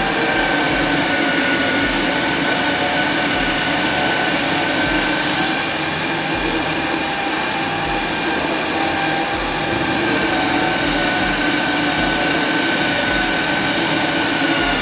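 A 3,000 lb electric ATV winch motor reeling in its cable under load as it drags the ATV, giving a steady whine that holds one pitch throughout.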